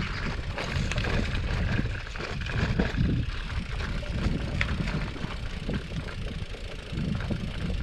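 Gravel bike rolling over a rough dirt trail: a low rumble from the tyres on the ground, with irregular rattles and knocks from the bike over the bumps.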